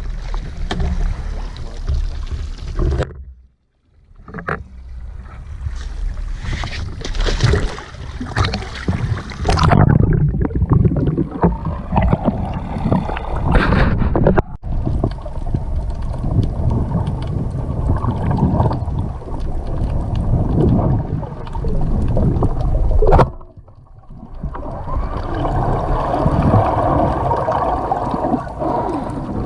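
Small motorboat running at speed on the plane, a dense rush of engine and water noise. The sound drops away briefly twice, about three and a half seconds in and again near twenty-four seconds.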